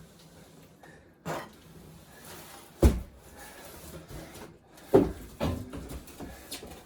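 Knocks, thumps and scraping of a large cardboard shipping box being handled and unpacked, with two sharp loud knocks about three seconds and five seconds in.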